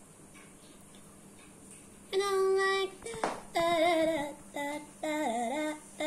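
A high, sing-song voice starts about two seconds in after a quiet stretch: several short phrases, some notes held flat and some dipping and bending, with a brief noisy burst just after three seconds.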